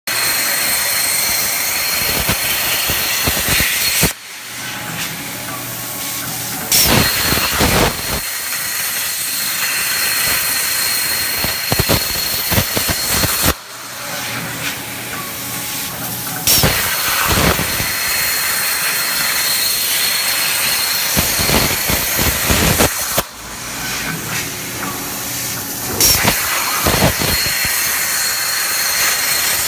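CNC plasma cutter torch cutting with a loud, steady hiss. The arc cuts off three times, about every nine and a half seconds, leaving a quieter stretch of two to three seconds, then restarts each time with a sharp, loud onset as it strikes again for the next cut.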